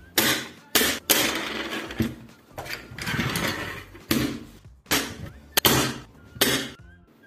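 Colouring pencils being taken from their box and set down on a tabletop: a run of sharp clicks, clatters and rustles, some drawn out to about a second.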